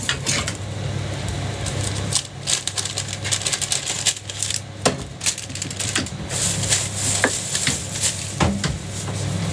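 Metal spatula tapping and scraping on a hot jianbing griddle in quick, irregular clicks and knocks, over the steady low hum of a gas burner.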